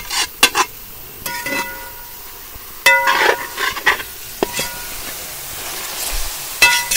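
A metal spoon scraping masala out of a steel pot, then a metal spatula stirring beef and masala in a large metal cooking pot, with a few ringing metal clinks against the pot. The beef and masala sizzle steadily underneath as they are dry-fried.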